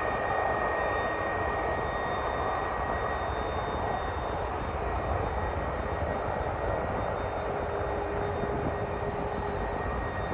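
Boeing 787-9 Dreamliner's twin turbofan engines running at takeoff power: a steady jet roar with a thin high whine held through it.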